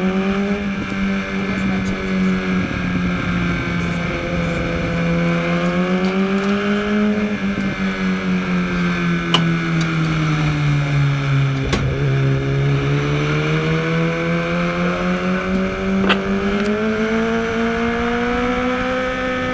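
2013 BMW HP4's inline-four engine heard onboard under racing throttle. Its pitch rises over the first several seconds, sags around the middle as revs drop to under 5,000 rpm, then climbs steadily toward about 7,000 rpm near the end.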